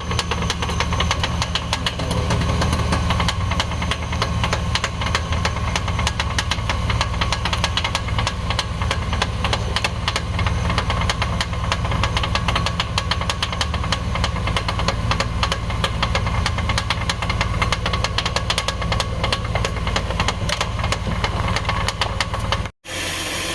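Chevy Express van engine running with a rapid, steady clacking knock from the engine-driven cooling fan: the sign of a failed fan clutch. Near the end the sound cuts out briefly and resumes more smoothly.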